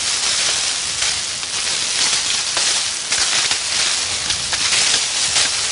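Sugar cane being cut by hand: dense rustling and crackling of cane stalks and dry leaves, with scattered sharp snaps.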